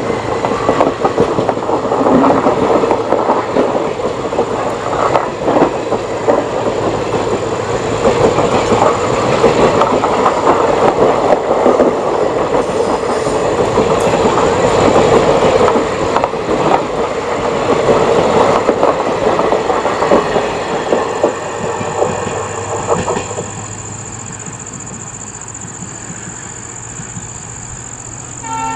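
Express train coaches running past at speed: a steady rush of wheels on rail with repeated clickety-clack over the rail joints, dropping away about 23 seconds in as the end of the train goes by.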